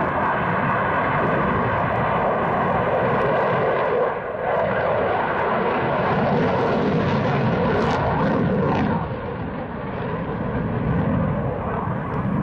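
Eurofighter Typhoon's two EJ200 turbofan engines: loud, steady jet noise from the fighter in flight. It dips briefly about four seconds in and eases again a little after the nine-second mark.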